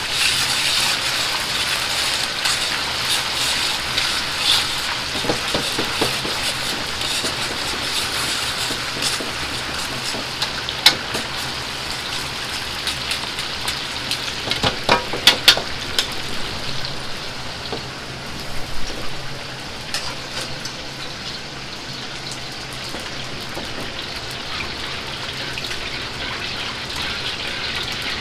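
Pork slices coated in potato starch being oil-blanched in a wok of hot oil: a steady, loud sizzle that eases a little in the second half, with a few sharp clicks around the middle.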